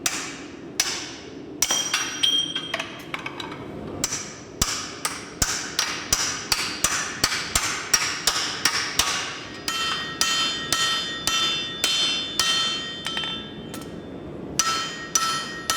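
Hand-forging blows: a steel axe used as a hammer strikes hot axe steel on an anvil. A few scattered blows open a steady run of about two strikes a second, with a metallic ring carrying on between blows in the second half.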